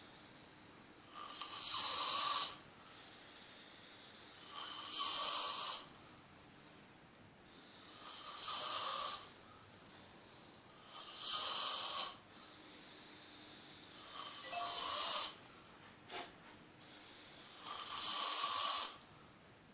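A person snoring heavily: six loud, noisy snores about every three seconds, with a short sharp snort just after the fifth and quieter breathing between them.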